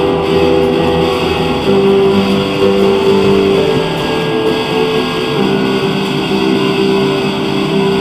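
Instrumental intro music led by guitar, with long held notes.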